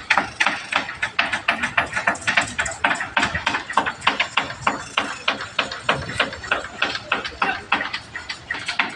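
Birds, crows among them, calling in a dense run of short, sharp calls, several a second, overlapping without a pause.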